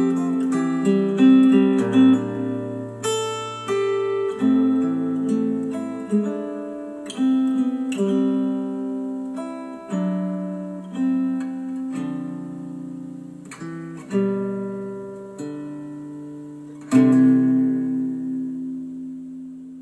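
Acoustic guitar music played through Dayton Audio B452 bookshelf speakers driven by a Yamaha A-S301 integrated amplifier. It is a run of plucked notes and strummed chords, ending on a last chord that rings out and fades.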